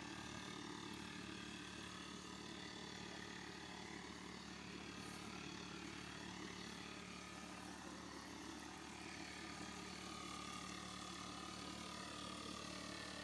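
Steady drone of a distant engine.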